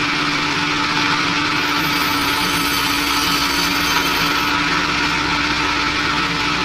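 Global HBS-250D meat band saw running steadily, its blade slicing through a bone-in pork hind leg, with a steady motor hum. A thin high whine joins about two seconds in.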